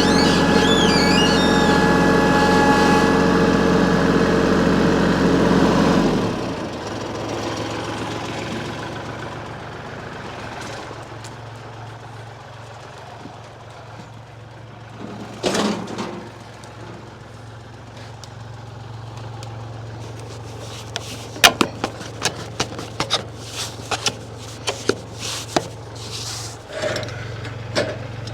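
A Kubota tractor's diesel engine running at raised revs, throttled down to idle about six seconds in, then idling steadily. Over the idle come a single knock, then a run of sharp clicks and knocks in the last third.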